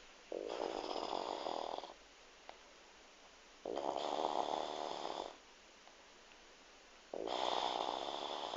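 A woman snoring in sleep: three loud snores, each about a second and a half long, coming regularly about three and a half seconds apart.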